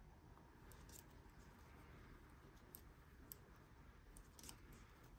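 Knitting needles clicking faintly and irregularly, a few light ticks as stitches are purled and slipped, over near silence.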